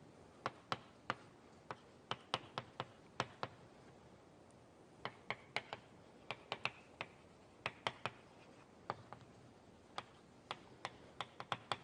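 Irregular sharp taps and clicks, often in quick clusters of two or three, with faint scratching between some of them in an otherwise quiet room.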